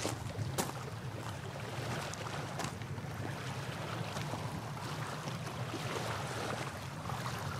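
Small waves lapping on a rocky lake shore, with a steady low rumble of wind and a few light clicks and crunches. The sharpest click comes right at the start.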